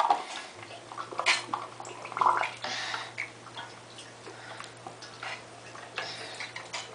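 Bath water splashing, with irregular knocks and clicks from a child playing with a toy truck in the tub. A low steady hum comes on about half a second in.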